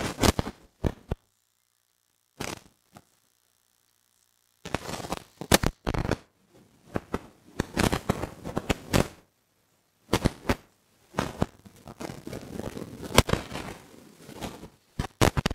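Handling noise: fingers and cloth rubbing and bumping against the recording device's microphone, irregular crackling scrapes and knocks in clusters with short pauses between them.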